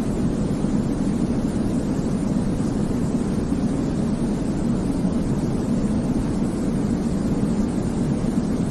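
Continuous baby-sleep white noise: a steady, even rush weighted toward the low end, so it sounds like a deep, unchanging rumble.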